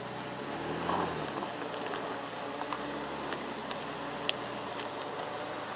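Ford Ranger Raptor pickup engine running at low revs as the truck crawls over a rough dirt track, with scattered sharp clicks and crunches of stones under the tyres.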